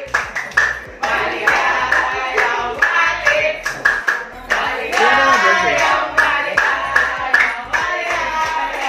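Singing over music, with hands clapping along in repeated claps through the whole stretch.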